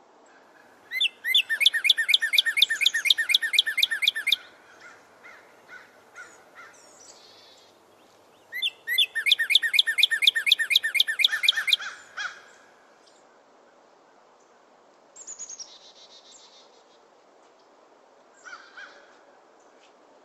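A bird calling: two long, rapid trills of repeated notes, each about three seconds, a few seconds apart, then a couple of short fainter calls near the end.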